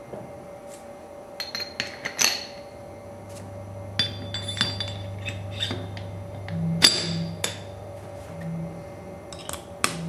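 Steel parts of a workholding mandrel clinking and knocking together as they are fitted by hand: a segmented clamping bushing seated on the mandrel body and a steel clamping ring set over it. Scattered sharp metal clicks, the loudest about seven seconds in and again near the end.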